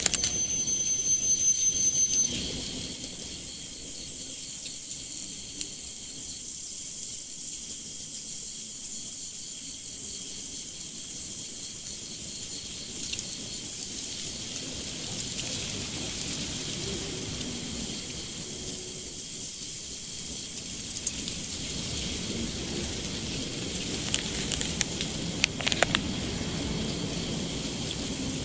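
Steady high-pitched hiss, with a rapid high chirping over the first two seconds and a few faint clicks near the end.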